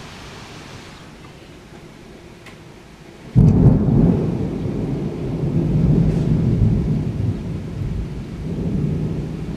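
A sudden, loud clap of thunder about a third of the way in, followed by a long, deep rolling rumble that swells and fades in waves. Before the clap there is a soft hiss of heavy rain.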